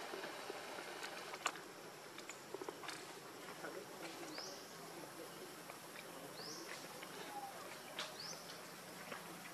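Faint outdoor ambience with a steady insect hum, broken by scattered light clicks and three short chirps that rise in pitch.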